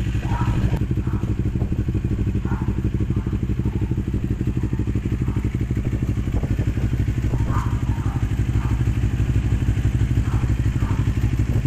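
CFMoto NK400 motorcycle's parallel-twin engine idling steadily through an aftermarket Akrapovic twin-pipe exhaust.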